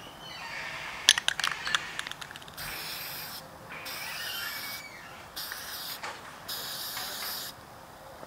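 Aerosol spray-paint can spraying onto tent fabric in several separate hisses of about a second each, with short pauses between them. Before the spraying starts, about a second in, comes a quick, loud run of clicks and rattles.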